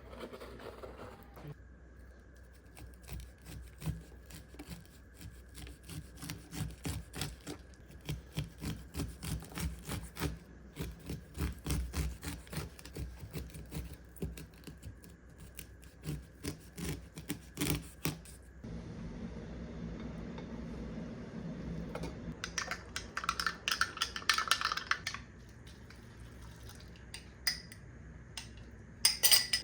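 Kitchen food prep: a knife making quick, repeated cutting strokes on a cutting board for about sixteen seconds, then a steadier rushing hiss for several seconds, with a couple of sharp clinks near the end.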